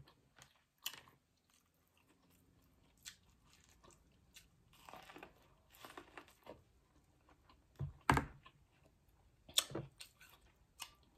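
Close-miked biting and chewing of a buttered ear of sweet corn: soft wet crunching with scattered sharp clicks, the loudest about eight seconds in.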